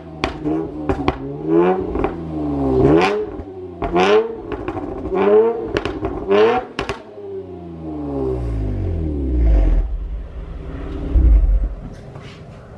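Car engine revved repeatedly through its dual rear exhausts, each blip rising and falling about once a second with sharp cracks between. Then the revs fall away in one long drop to a low rumble and settle toward idle.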